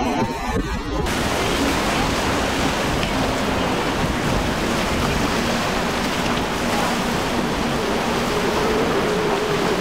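Steady rush of wind on the microphone and churning water from a fast center-console boat crossing choppy sea. A faint steady drone from its outboards sits underneath and comes through more clearly near the end. The boat is a Contender with triple Mercury Racing 400 hp outboards.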